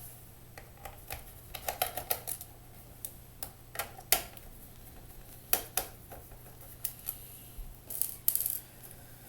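Irregular small clicks and taps of a screwdriver backing screws out of the underside of a Lenovo IdeaPad S500 laptop, coming in short clusters.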